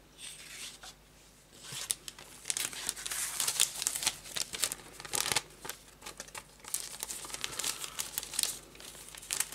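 Thin plastic bag crinkling as it is handled, a quiet start followed about a second and a half in by a dense, irregular run of crackles.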